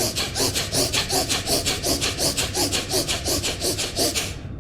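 Fast, forceful bhastrika (bellows breath) breathing through the nose: rapid, evenly paced inhales and exhales at about four strokes a second, stopping shortly before the end.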